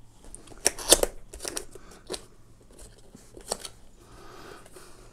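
A small cardboard product box being handled and turned over in the hands: several sharp clicks and taps of card with light scraping between them, the loudest about a second in.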